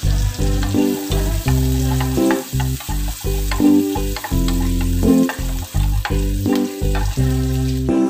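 Sliced garlic and red chilies sizzling in hot oil in a wok while a wooden spatula stirs and scrapes them, under background music with a pitched bass line changing notes about twice a second.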